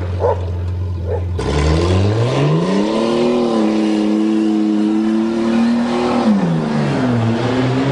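1982 Toyota Cressida's engine running at low revs, then revving up about a second and a half in and holding the higher revs for about three seconds. It drops back around six seconds and picks up again near the end.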